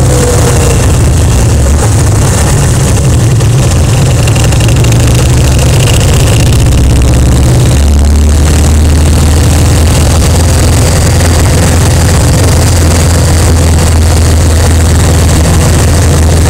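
Kawasaki Vulcan 1500's V-twin engine running while the motorcycle is ridden, loud and steady, with its low note shifting about halfway through.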